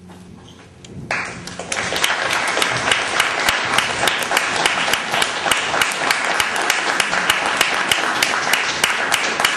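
Audience applauding: many hands clapping start suddenly about a second in and keep up a dense, steady clapping.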